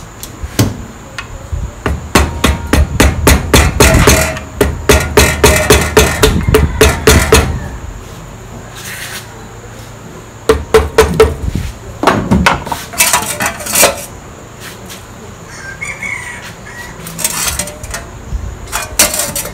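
Rubber mallet tapping on the aluminium clutch cover of a Yamaha 125ZR engine to loosen it from the crankcase. The blows come in three runs of about three or four a second, the longest near the start, some with a short ring.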